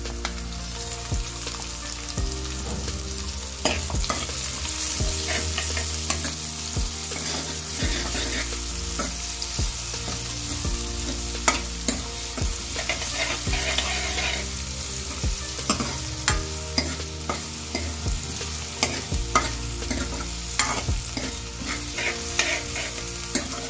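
Chopped onions sizzling as they fry in hot oil in a steel kadhai, with a steel ladle scraping and clinking against the pan as they are stirred.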